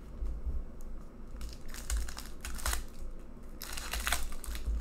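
Foil hockey card pack wrapper crinkling as it is torn open by hand, in two rustling stretches, one about a second and a half in and one near the end, over low handling bumps.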